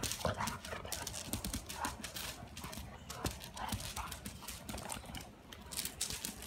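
Two dogs romping on concrete: rapid, irregular clicking and scuffing of claws and paws on the hard surface as an English setter and a puppy wrestle and dart about.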